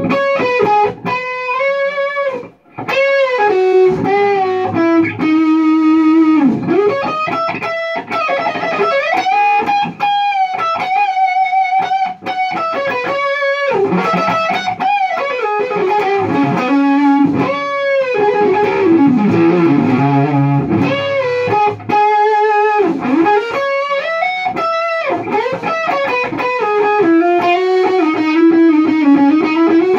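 Distorted electric guitar through a Lone Wolf Audio Left Hand Wrath pedal set for a mid-gain, plexi-style Marshall tone, playing a lead line of single notes with string bends and vibrato in a 60s–70s rock style. There is a short break at about two and a half seconds in.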